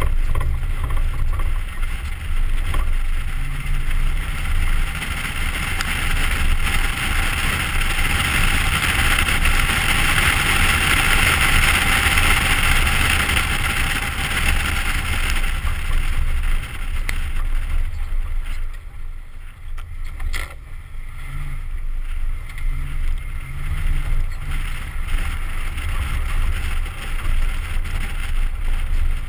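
Ford Raptor's 6.2-litre V8 running as the truck is driven off-road, under heavy wind buffeting on the microphone. The roar is loudest in the middle and drops back about two-thirds of the way in.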